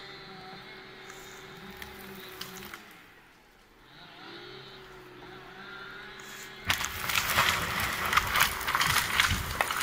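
A felled log being hauled by a cable yarder's winch line, dragged through slash and brush on a slope. A steady machine hum runs at first; about seven seconds in a loud, dense crackling and cracking of snapping branches and scraping wood begins as the log tears loose and skids away, and it lasts to the end.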